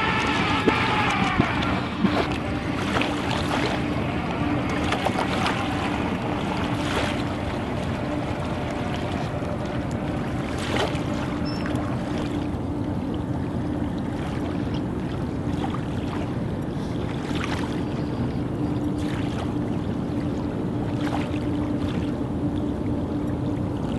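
Electric motor whine from the tracked ROV, falling in pitch and dying away about a second and a half in. It gives way to a steady low hum over water wash and wind, with scattered clicks.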